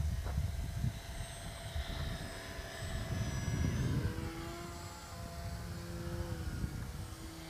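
Micro RC pattern plane's motor and propeller whining in flight, the pitch shifting up and down several times, over a low uneven rumble.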